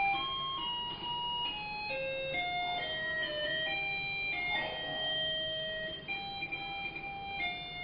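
A simple electronic chip melody played one bare note at a time, each note a steady beep-like tone held for a half second to a second or so before stepping to the next pitch.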